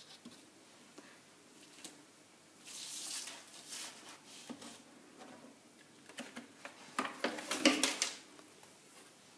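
Handling noise from pattern drafting: a paper sheet shifting and rustling on a wooden table and a steel ruler being moved, in a few short bursts, the loudest about seven to eight seconds in.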